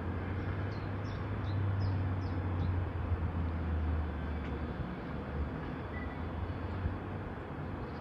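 London Underground 1972 Stock Bakerloo line train standing at the platform with its doors open, its onboard equipment giving a steady low hum that eases off about five seconds in.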